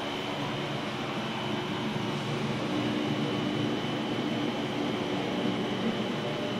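Steady machine hum and hiss with a faint high whine, heard from inside an enclosed Ferris wheel gondola.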